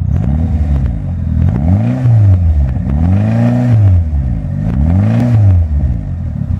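1997 Mitsubishi Eclipse GSX's turbocharged 2.0-litre four-cylinder engine revved in about four blips, each rising and falling back, with a knock from the bottom end. The owner puts the knock down to a bad connecting rod.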